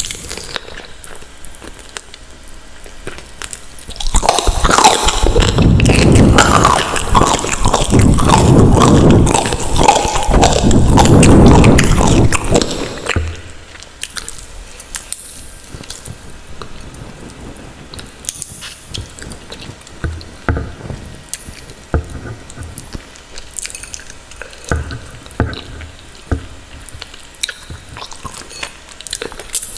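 Close-miked eating and mouth sounds of ramen noodles: a loud, wet stretch of several seconds, then quieter chewing with scattered small clicks.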